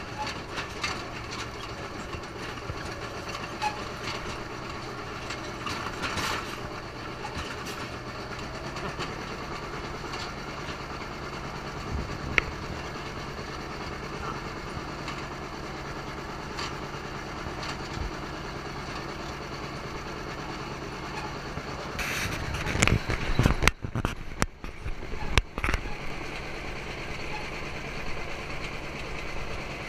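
Farm tractor engine running steadily at a low, even pace while the towed ride wagon rattles and clatters along. About three quarters of the way through come a few seconds of loud thumps and rumbles.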